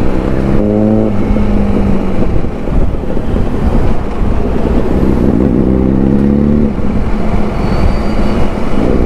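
Motorcycle engines running, with one engine note rising in pitch as it revs up from about four and a half to nearly seven seconds in. Wind noise on the riding microphone runs underneath.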